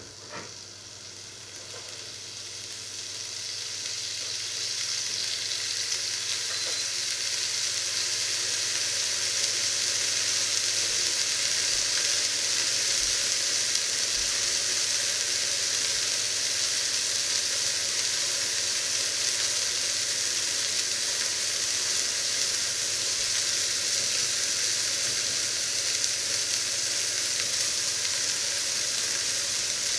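Marinated piece of meat sizzling in a black steel pan, the frying growing louder over the first several seconds and then holding steady.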